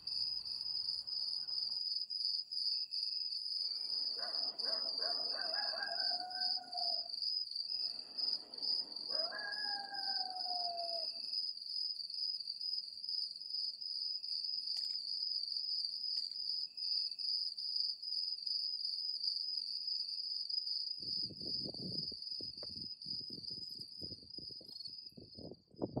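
Crickets chirping in a steady, high, pulsing trill. Twice, a drawn-out animal call slides down in pitch, and in the last few seconds comes a quick run of knocks and scuffs.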